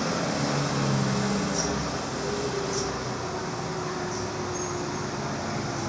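Heavy truck's engine running steadily under a constant hiss of road and rain noise, descending a hill with a heavy load; the engine's low hum is strongest in the first two seconds.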